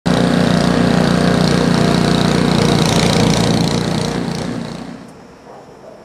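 Snowblower engine running steadily under load while throwing snow. It fades out about four seconds in.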